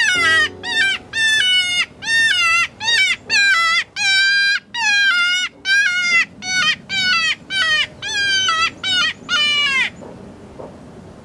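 Predator call sounding a distress cry to lure in a coyote: a rapid series of loud, wavering squalls, about two a second, that stops abruptly about ten seconds in.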